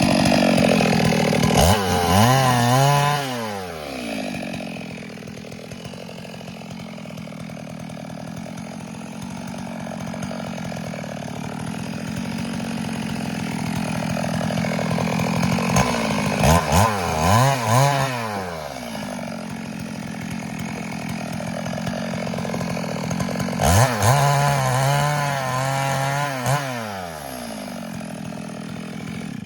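Stihl MS 382 two-stroke chainsaw running, its engine revved up and back down three times: a couple of seconds in, just past the middle, and near the end, with steadier running between. The saw stops abruptly at the end.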